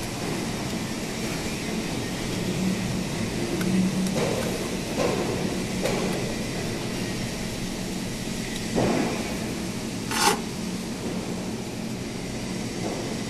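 Steady mechanical hum of a beam welding machine, with a few light knocks as its torch holders and brackets are handled and one short, sharp hiss about ten seconds in.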